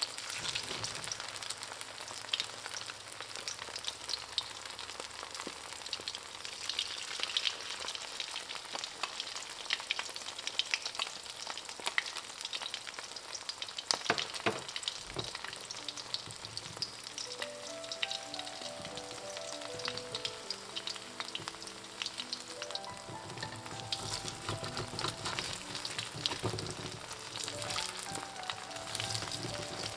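Oyster omelette batter frying in hot oil in a wok: a steady sizzle with constant small crackles and pops of spattering oil. Soft background music with a simple melody comes in about halfway through, under the sizzle.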